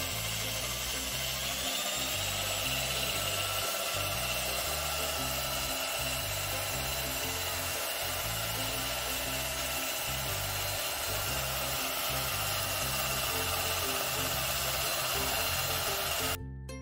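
Electric hand drill running steadily while it spins a kite-string reel, winding string onto it. Its whine rises in pitch about two seconds in, then holds steady, and stops near the end.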